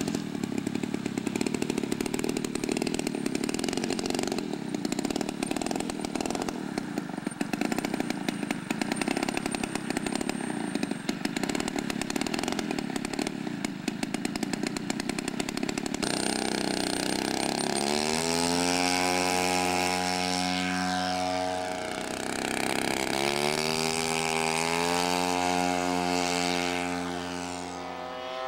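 Quadra 75cc two-stroke petrol engine of a giant-scale radio-controlled Messerschmitt Bf 109E, first running at low throttle with a fast rattle as the model taxis. About halfway it changes to a steady, higher-pitched drone at high throttle that twice rises and falls in pitch.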